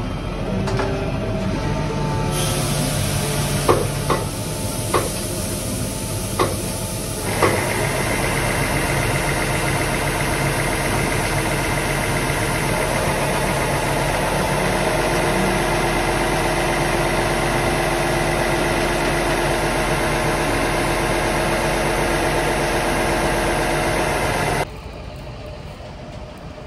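Tractor engine running while a hydraulic tipping trailer empties a load of shelled maize, the grain pouring and sliding out with a steady hiss. A few knocks come in the first seven seconds, then the engine note steps up and holds steady. The sound drops away sharply near the end.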